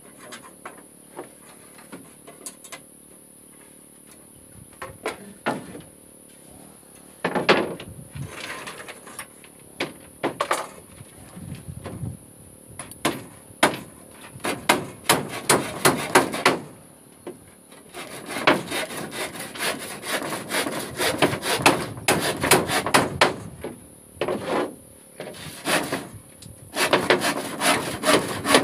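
Handsaw cutting across a wooden floor plank: light, scattered strokes at first, then runs of quick back-and-forth strokes from about seven seconds in, broken by short pauses.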